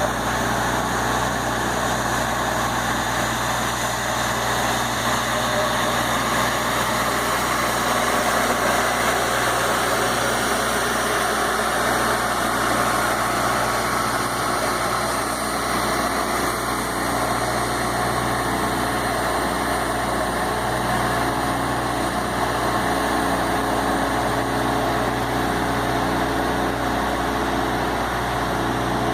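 Battery-powered Tennant Brava ride-on floor scrubber running steadily, its motors giving a constant hum with a low steady tone.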